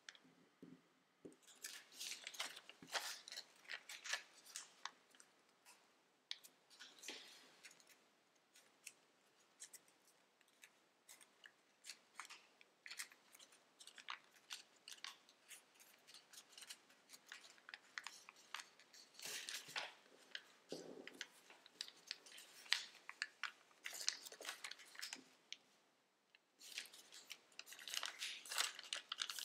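Origami paper crinkling and rustling as it is folded and creased by hand: irregular runs of short, crisp crackles with quieter gaps between. The louder spells come about two seconds in, around twenty seconds in and near the end.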